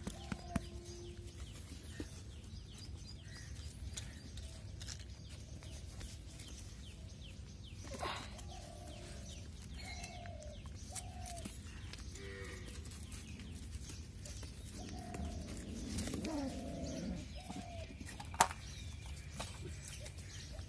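Faint, short, falling animal calls at irregular intervals, bunched together about 15 to 17 seconds in, with a few sharp clicks and a steady low rumble underneath.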